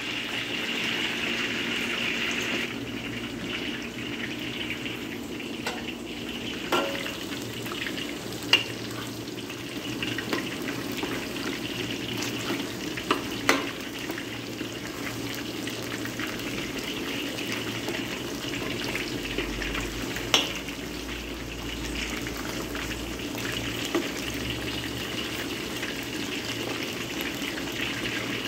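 Battered pieces deep-frying in hot oil in a stainless steel wok, a steady sizzle. A few sharp clicks come through it as a slotted spoon stirs the pieces against the wok.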